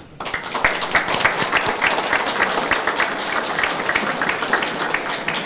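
Audience applauding: the clapping breaks out all at once and eases off a little near the end.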